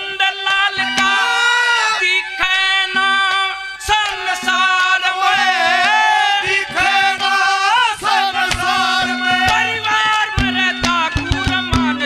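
A man singing a Haryanvi devotional ragni over held melodic accompaniment and hand-drum strokes, his voice wavering in pitch about halfway through. The drum strokes come thicker near the end.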